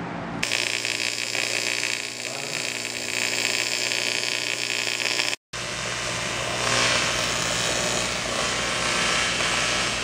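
Electric welding arc striking about half a second in, then crackling and hissing steadily over a low hum as a crack in a wheel rim is welded. The sound drops out completely for a moment about halfway through.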